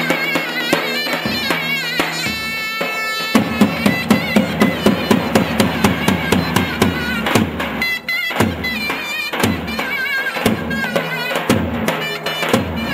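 Traditional Turkish folk dance music: a davul bass drum beats a steady rhythm under a wavering melody line. From about three seconds in, heavy drum strokes come about four a second.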